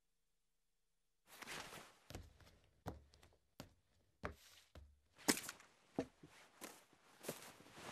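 A string of knocks and thuds, a little more than one a second at a fairly even pace, starting about a second in after silence with a short rush of noise; the pace is like footsteps.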